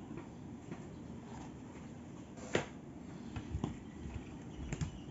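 Plastic action-figure toy pieces being handled: a sharp click about two and a half seconds in, then a few lighter clicks and taps.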